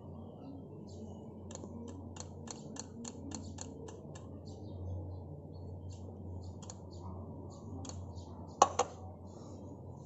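Pump oil can clicking as its pump is worked to squirt oil onto a foam motorcycle air filter: a quick run of about four to five clicks a second for a couple of seconds, a few more clicks later, and two louder clicks near the end.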